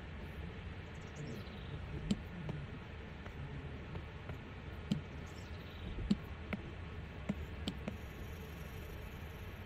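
Apple Pencil tip and fingertip tapping on an iPad's glass screen: about six light, sharp taps spread through the middle, over a steady low hum.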